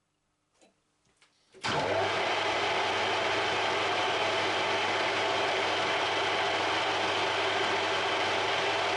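A few faint clicks, then a workshop machine switches on abruptly and runs steadily with a loud, even hiss over a low hum.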